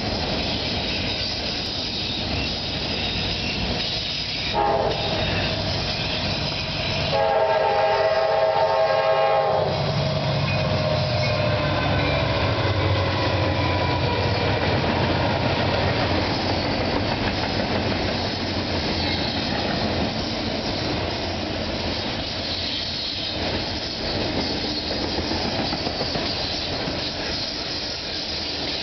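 Two freight trains passing at close range: a steady rumble and clatter of railcars on the rails, with a short locomotive horn note about five seconds in and a longer chord-like horn blast from about seven to nine and a half seconds. Then the deeper rumble of diesel-electric locomotives, an EMD SD70M and a GE B40-8, going by, followed by double-stack container cars.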